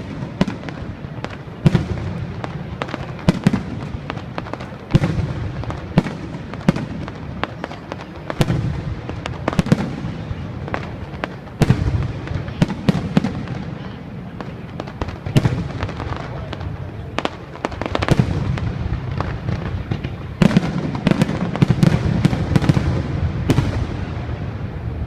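Fireworks going off: an irregular barrage of sharp bangs with deep booms, coming in thicker clusters near the end.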